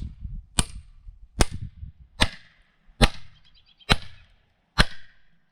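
Mini sledgehammer striking the spine of a froe, six sharp metallic hits a little under a second apart, driving the blade down into the heart of a squared log, where the wood is tight and slow to split.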